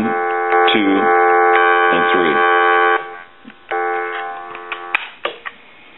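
Steady buzzy tone with many overtones from a Harris TS22 lineman's buttset's amplified speaker in monitor mode. It cuts off sharply about three seconds in, comes back briefly and fades, and a few sharp clicks follow near the end.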